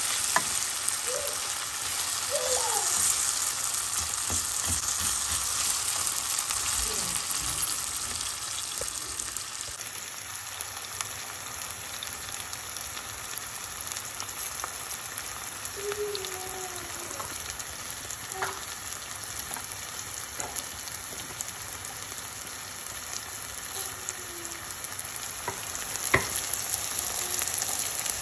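Onions and tomato frying in oil in a stainless steel pan, a steady sizzle, stirred with a wooden spatula that now and then clicks against the pan. The sizzle is louder at first and drops about ten seconds in.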